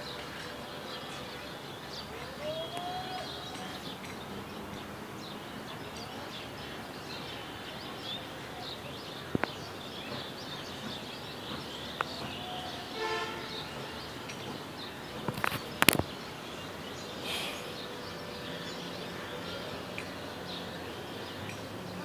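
Outdoor ambience: many short bird chirps over a steady background noise, with a few sharp clicks, the loudest a quick cluster about three-quarters of the way through.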